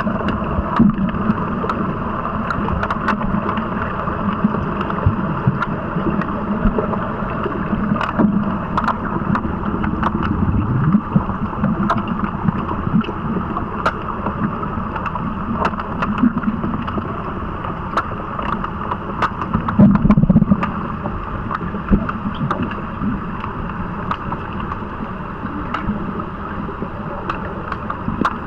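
Underwater hockey play heard through a submerged camera in a pool: a steady muffled rush of water with frequent sharp clicks and knocks, and a louder low surge of splashing about twenty seconds in.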